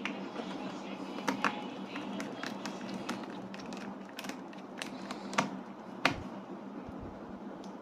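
Irregular small clicks and taps of a Lenovo IdeaPad 3 laptop's bottom cover being pressed and snapped back into place as the laptop is closed up, a sharper click about six seconds in.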